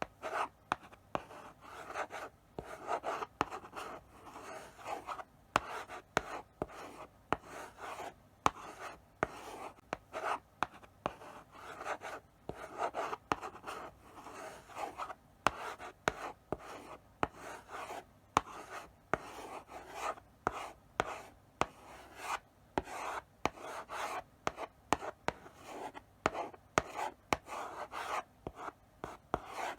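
Chalk writing slowly on a blackboard: a steady run of short scratching strokes, each with a sharp tap as the chalk touches the board.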